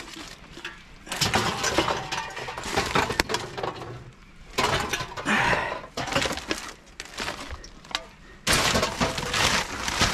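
Rubbish being rummaged through in a dumpster: a rustling, scraping clatter with clinks of glass, coming in three spells, the loudest near the end.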